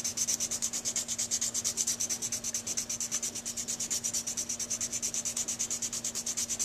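Used 220-grit sandpaper rubbed in rapid, even back-and-forth strokes, several a second, over the tip of a Silverite metal Dukoff saxophone mouthpiece, shaping it: a steady rasping rhythm.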